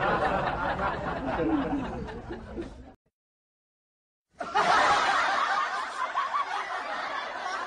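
Two laughter sound effects: the first tails off and cuts off about 3 seconds in, and after a second or so of silence a second laugh clip starts abruptly and carries on.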